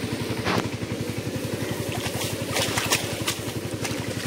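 Tractor engine running steadily with an even, rapid beat, plus a few short sharp knocks over it.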